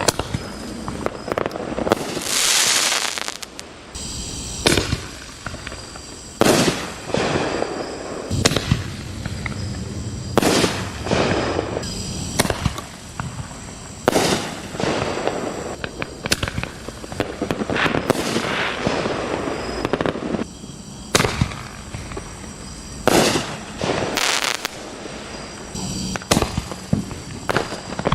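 1.75-inch aerial firework shells bursting one after another, a loud report roughly every two seconds, each followed by a trailing crackle and fizz.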